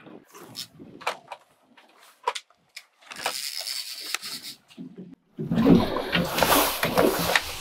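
Water and handling sounds on a small fishing boat at sea: scattered clicks and knocks, then a steady hiss, then louder rumbling and rustling with knocks in the last two seconds.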